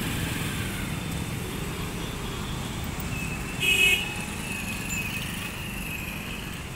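Road traffic with motorcycles and small motor vehicles running past, and a short horn beep about three and a half seconds in.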